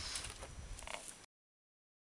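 Faint scuffs and a few short clicks, then the sound cuts off abruptly to silence a little over a second in.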